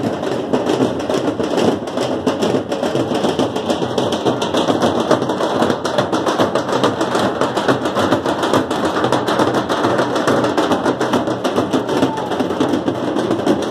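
Several large drums beaten with sticks, fast and without a break, making a dense continuous clatter of strokes.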